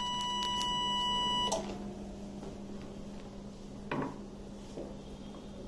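Eclipse Force 400 electrosurgical cautery unit sounding its steady high activation tone during bipolar macro-mode coagulation, with a few faint clicks. The tone cuts off with a click about one and a half seconds in. A single knock comes near four seconds in, over a low steady hum.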